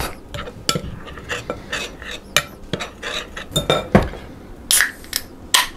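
Metal wire whisk stirring dry flour and spices in a glass bowl, its wires clicking and tapping irregularly against the glass, with a few sharper knocks in the second half.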